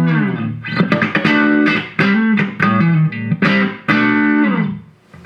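Fender Stratocaster electric guitar played through a compressor pedal and a small Vox amp: a short phrase of sustained notes and chords, opening with a slide down in pitch. The last note rings and dies away shortly before the end.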